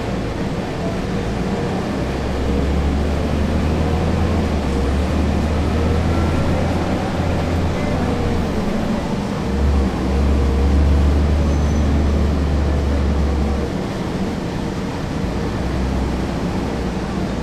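1999 Nova Bus RTS's Cummins ISC inline-six diesel engine, heard from the back seat inside the bus. Its low rumble builds about two seconds in, dips briefly midway, is loudest shortly after, and eases off near the end.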